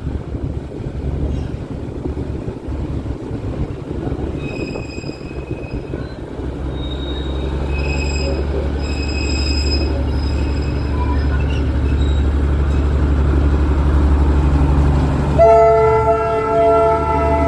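Darjeeling Himalayan Railway toy train running with a steady low rumble that slowly grows louder. A few short high-pitched tones sound partway through, and the train's horn starts about fifteen seconds in and holds to the end.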